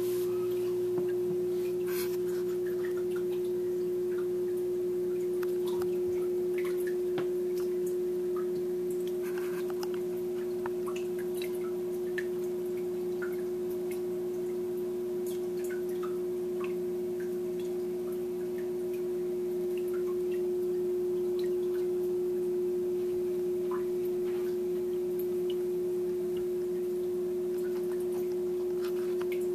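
Steady hum of a reef aquarium's pump running, one unchanging pitch with a few weaker lower tones beneath it, and scattered faint ticks.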